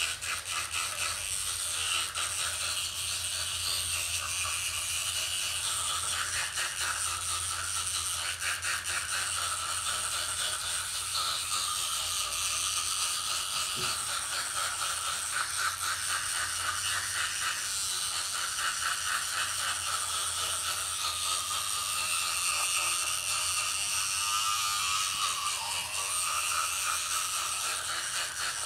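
Battery-powered electric toothbrush buzzing steadily while brushing teeth, the head rattling and scraping against the teeth, its tone shifting as the mouth moves.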